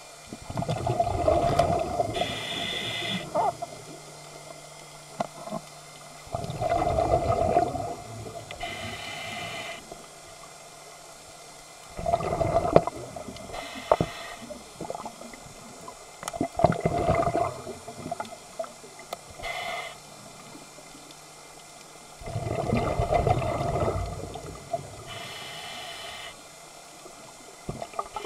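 A scuba diver breathing through a regulator underwater. About five loud gurgling bursts of exhaled bubbles come several seconds apart, with a shorter, higher hiss of the inhale between some of them.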